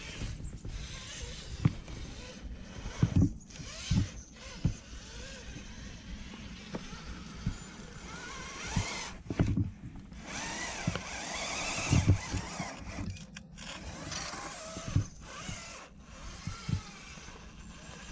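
Axial Capra RC rock crawler climbing between rocks: its electric motor and drivetrain whine, rising and falling in pitch with the throttle, mixed with frequent knocks and scrapes of the tyres and chassis against the rock.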